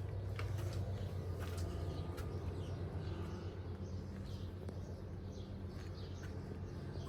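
Small birds chirping and twittering over a steady low hum.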